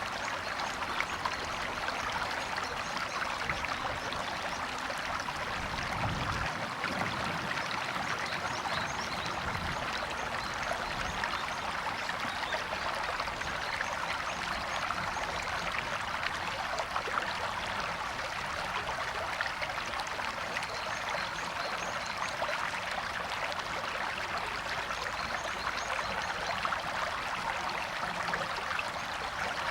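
River water running and splashing steadily over stones, a continuous rushing with fine bubbling, with a brief low rumble about six seconds in.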